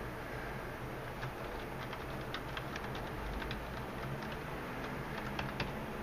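Computer keyboard typing: light, irregular keystroke clicks over a steady background hiss.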